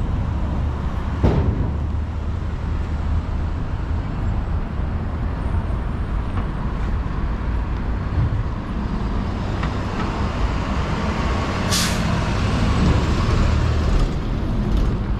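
Street traffic with a heavy vehicle's engine running low and steady, a sharp click about a second in, and a short hiss of released air about twelve seconds in.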